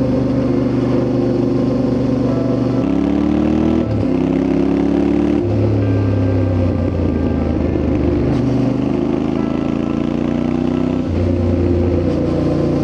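Yamaha Ténéré 700's parallel-twin engine running under way, its pitch climbing as it accelerates and dropping back at several gear changes, about three and four seconds in and again about eleven seconds in.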